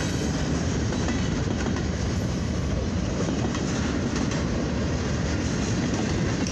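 Freight cars of a mixed freight train rolling past: a steady rumble of steel wheels on the rails.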